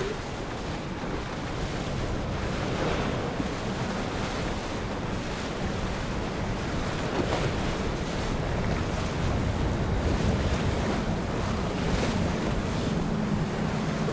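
Boston Whaler 230 center console's Mercury outboard running steadily as the boat cruises past, under water rushing off the hull and wind on the microphone. The low engine hum grows stronger near the end.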